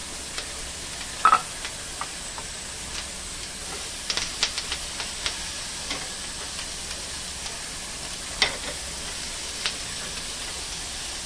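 Chopped capsicum and tomato sizzling in butter in a small non-stick frying pan, with a spatula stirring them: a steady sizzle broken by sharp clicks and scrapes, the loudest about a second in and again at about eight seconds.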